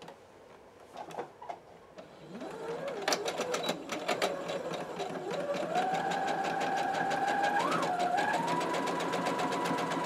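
Electric domestic sewing machine starting up about two seconds in, its motor whine rising as it speeds up and then running steadily, with the rapid even ticking of the needle stitching through quilted fabric and batting.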